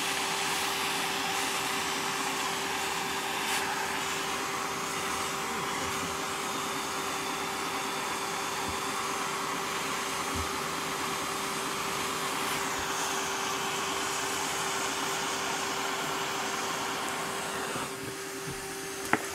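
Hand-held soldering torch burning steadily as its flame heats a brass fitting on copper pipe to sweat a solder joint, a constant hiss with a steady hum in it. The torch is turned up high, which the plumber afterwards thinks was a little too high and risked overheating the brass so it would not draw the solder. The flame noise drops away near the end as the torch is shut off.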